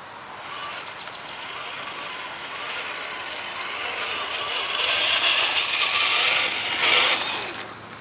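Tamiya Tundra RC truck's electric motor and gear drivetrain whining as it crawls, growing steadily louder to a peak and then dropping off sharply a little before the end.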